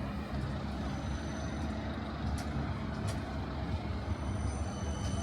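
Tram heard from on board: a steady low rumble with two sharp clicks, one a little over two seconds in and one about three seconds in.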